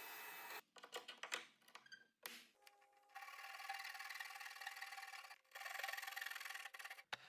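Woodworking sounds in short cut-together snippets: a steady hiss, then a run of light taps and clicks about a second in, then a steady hiss with faint steady tones from about three seconds in.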